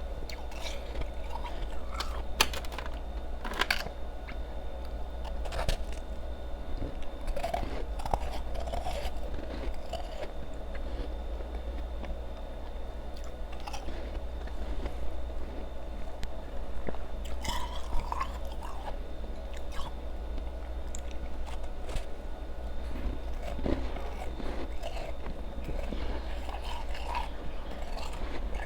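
Ice being chewed close up: irregular crisp crunches and bites as the ice breaks between the teeth, over a steady low hum.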